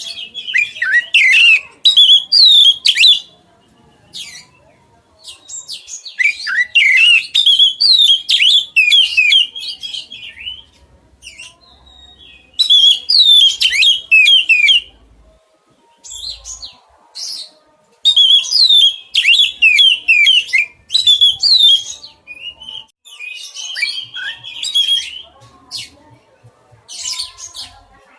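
Oriental magpie-robin (kacer) singing loudly in rapid phrases of varied sweeping whistles and chirps, each burst lasting two to four seconds with short pauses between them.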